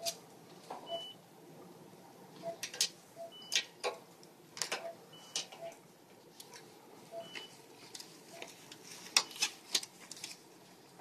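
Veterinary anaesthesia monitors beeping: a low short beep about once a second and a higher short beep every two seconds or so. Over them come sharp clicks and rustles of IV tubing and tape being handled, the loudest a cluster about nine seconds in.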